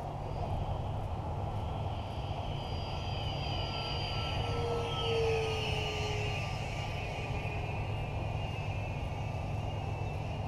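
FMS 70mm F-16 RC jet's 10-blade electric ducted fan whining in flight, growing louder and falling in pitch as it passes by about five seconds in, over a steady low rumble.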